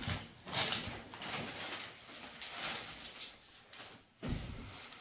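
Rustling and crinkling of a gift package being handled and opened by hand, in irregular bursts, with a louder rustle a little after four seconds in.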